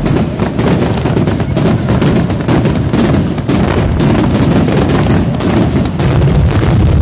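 Fireworks display: a dense barrage of aerial shell bursts, loud reports following one another several times a second without pause.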